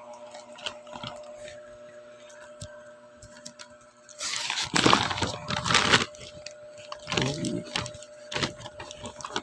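Packaging rustling and crinkling as firecrackers are unwrapped by hand, with small clicks; loudest from about four to six seconds in and again briefly near the end. A faint steady hum runs underneath.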